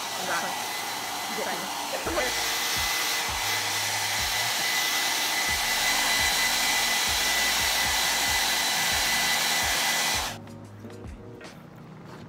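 Handheld hair dryer blowing steadily with a thin whine. It gets louder about two seconds in and cuts off about ten seconds in.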